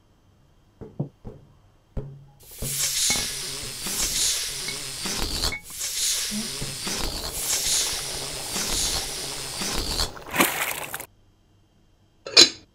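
A few soft knocks and a thump, then a long hissing noise that swells and fades about once a second for some eight seconds and cuts off suddenly; a short, sharp burst of noise near the end.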